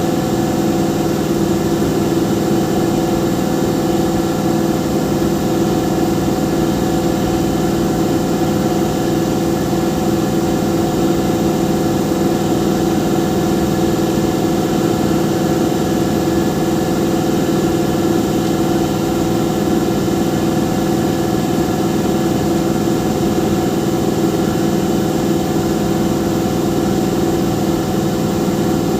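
Engine idling, a steady unbroken hum that holds one pitch.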